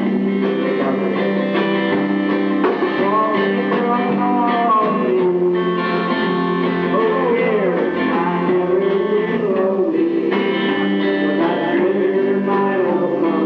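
Live band music with a voice singing into a microphone over guitar, and a steady low note held underneath; the melody line wavers and slides in pitch.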